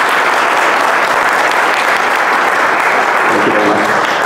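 Audience applauding steadily at the end of a talk, with a voice briefly audible through the clapping near the end.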